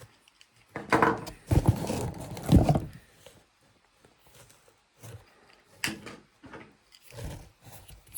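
Plastic accessories of a portable pressure washer being handled: a run of knocks and scrapes from about one to three seconds in, a sharp click near six seconds, and a duller knock about a second later.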